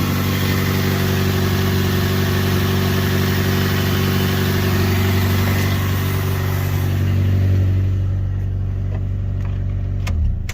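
Toyota Corolla AE92's four-cylinder engine idling steadily after a restart, running on a newly fitted distributor and starter.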